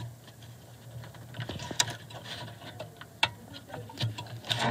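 Irregular small clicks and rattles of hands working inside a car headlight housing, clipping the headlight bulb and its wire retaining clip back into place, with sharper clicks about two and three seconds in.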